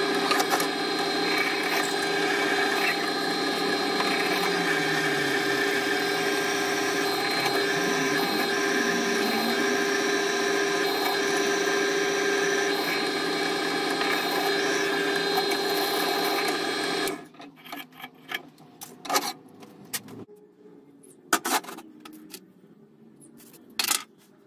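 Benchtop drill press running with a steady hum, its bit cutting a hole through a forged steel bar clamped in a drill press vise. The motor stops abruptly about 17 seconds in, followed by a few scattered clicks and knocks of metal parts being handled.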